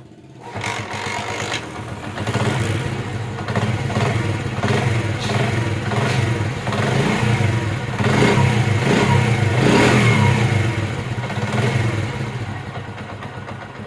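Honda CD70's small single-cylinder four-stroke engine starting about half a second in, then revved up and down before easing back toward idle. It runs without timing chain rattle, which the mechanic credits to a new tensioner rod and spring.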